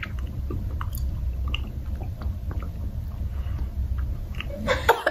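People chewing jelly beans with closed mouths: faint wet mouth clicks over a steady low rumble. Near the end come a few louder short bursts of sound.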